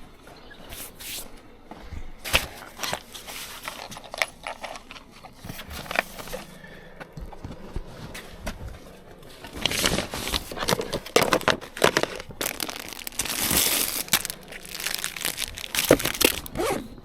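Irregular rustling and crinkling with light knocks and clicks, busier and louder from about ten seconds in.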